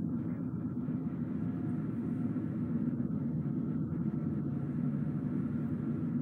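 Car driving at steady speed: an even, low rumble of tyre and engine noise.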